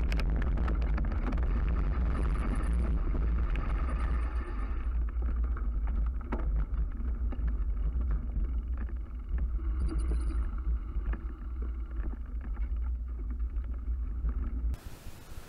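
Bicycle tyres rolling over a gravel and dirt forest track, rattling over the rough surface under a heavy low rumble, with a few brief high chirps. The noise cuts off abruptly near the end.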